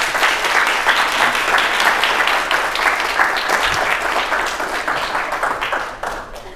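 Audience applauding, a dense patter of many hands clapping that fades away near the end.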